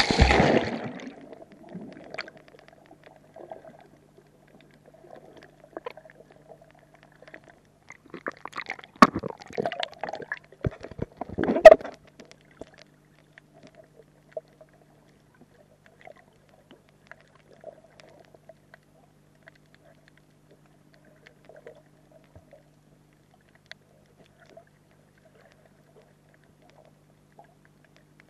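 A splash as the action camera plunges under the sea surface, then muffled underwater sound through the camera housing with a faint steady hum and scattered ticks. About nine to twelve seconds in comes a cluster of sharp knocks, the loudest near the twelfth second.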